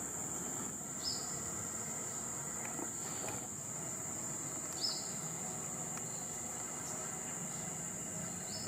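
Insects droning in a steady, high-pitched chorus, with a short falling chirp heard three times, about a second in, near the middle and at the end.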